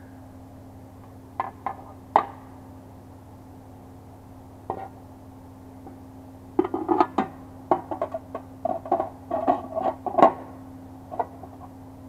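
Sheet-metal clanks and knocks as a metal blower impeller is handled and fitted into a sheet-metal blower housing: a few scattered knocks, then a busier, irregular run of clatter from about six and a half to ten seconds, over a steady low hum.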